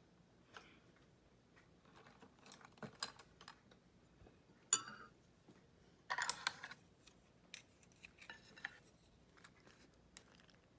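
Dishes and utensils being handled: scattered light clinks and taps, with a ringing clink nearly five seconds in and a short, louder clatter about a second later.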